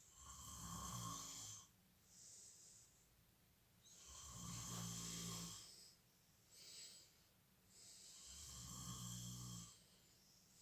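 A person snoring in a slow, regular rhythm: three loud, low snores about four seconds apart, each followed by a softer, hissing breath out.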